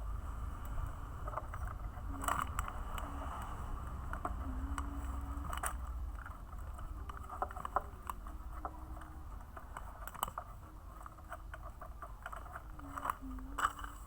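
Plastic toy parts being handled and fitted together: scattered clicks and light rattles over a low rumble, with a faint low hum that comes and goes in short steps of pitch.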